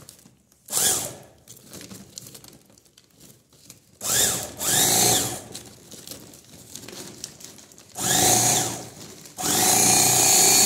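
Revo Model DA handheld electric bag-closer sewing machine stitching a woven sack shut, its motor run in four bursts: a short one near the start, a longer one midway and two near the end. Each burst whines up in pitch as the motor speeds up and falls away as it is released.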